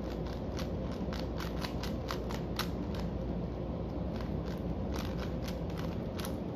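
Layers of an old-model Rubik's Cube being turned fast in a speed solve: quick irregular plastic clicks, several a second, over a steady low hum.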